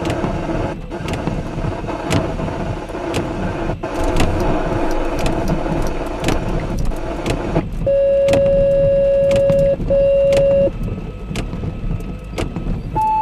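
Rain in a thunderstorm, a steady hiss with many sharp drop ticks. About eight seconds in, long steady electronic beeps start: two at one pitch, then a higher one near the end.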